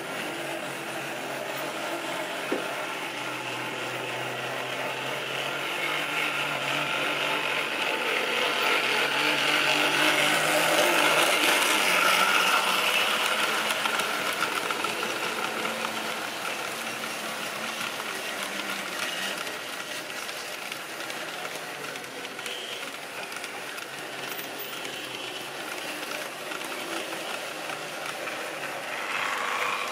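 Model railway train running past on the track: the hum of its motor and the rattle of its wheels grow louder, are loudest about twelve seconds in as it passes close by, then fade. There is a brief clatter near the end.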